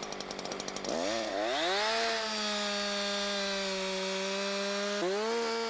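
Two-stroke chainsaw idling with a rapid even pulse, then throttled up about a second in and held at high speed while sawing into wood. The engine speed dips sharply about five seconds in and picks up again.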